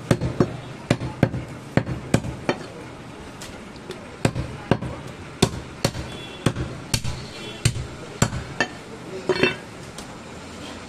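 Heavy curved chopping knife striking goat meat on a wooden stump chopping block: sharp chops about three a second, with a short lull around three seconds in.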